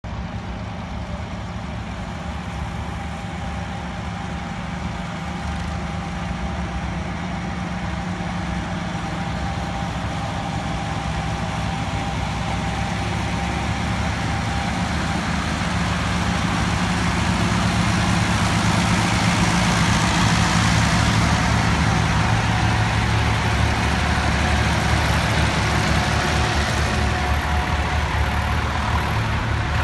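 A line of vintage tractors driving past at a slow, steady pace, their engines running with a low, even thrum that grows louder as they draw near and pass close by.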